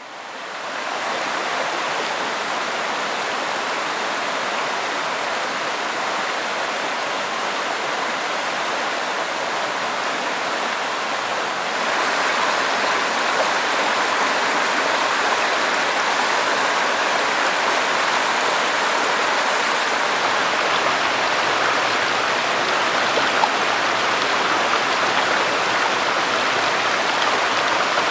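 Mountain stream rushing over rocks, a steady wash of water that fades in at the start. About twelve seconds in it grows louder, where a small cascade pours into a pool.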